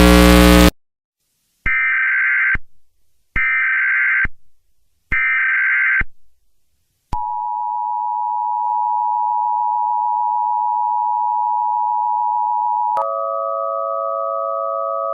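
Emergency Alert System header: three short screeching bursts of digital data about a second long and a second apart, then the EAS attention signal, a steady two-tone beep held for about six seconds, which switches near the end to a different tone pair for about two seconds. A loud sound cuts off suddenly just before the first burst.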